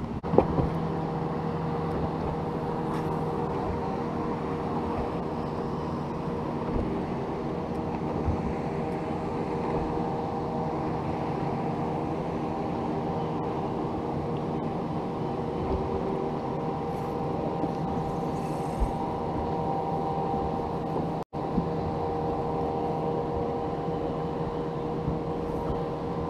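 Bass boat motor running steadily, a constant hum of several pitches over a low rumble. The sound drops out for an instant about 21 seconds in.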